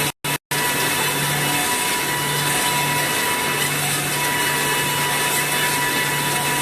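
Round wooden rod forming machine running, cutting wood into round broom and mop handles: a steady machine noise with a constant high tone. The sound cuts out twice, very briefly, near the start.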